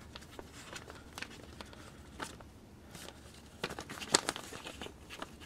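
Plastic bag crinkling and rustling as a coil of wire is pushed into it, with scattered small clicks, loudest about four seconds in.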